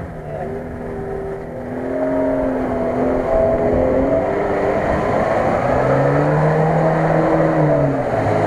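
Lada Niva 4x4's engine revving as it wades through shallow water and mud, its pitch rising and falling with the throttle, over a rough wash of churned water. It grows louder about two seconds in, and the engine note dips briefly near the end before climbing again.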